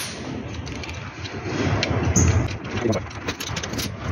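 Quick, irregular metallic clicking and rattling as the three 10 mm bolts holding the body of a solar submersible pump are undone, with handling knocks on the stainless pump casing.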